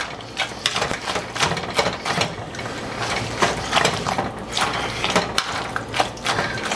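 Boiled potatoes being mashed by hand in a pot: the utensil knocks and scrapes against the pot in quick, uneven strokes, several a second.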